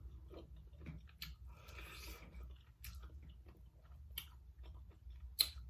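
Close-miked chewing and wet mouth clicks of someone eating seafood boil, with a few sharper clicks about four and five and a half seconds in.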